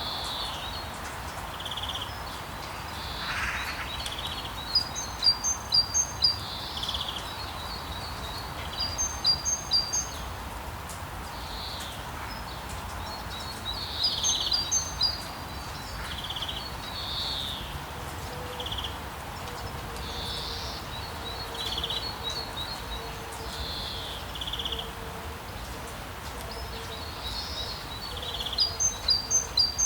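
Outdoor birdsong ambience: birds chirping in quick runs of high notes every few seconds over a steady background hiss.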